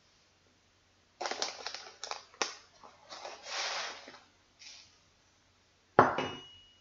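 Dry rice being scooped with a spoon and poured into a sock: a run of clicks and a rustling, pattering hiss for about three seconds. About six seconds in, one loud sharp knock with a short ring.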